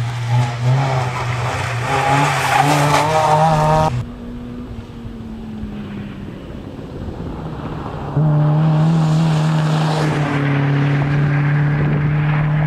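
Rally car engine at full throttle, its note climbing as the car accelerates, then dropping away abruptly about four seconds in to a quieter, slowly falling drone. About eight seconds in a loud, steady engine note cuts in again and holds.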